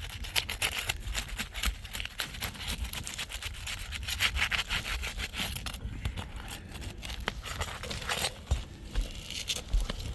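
Roof shingles being pried and worked loose, with continuous scraping and rubbing and many sharp crackles as the brittle shingles break apart.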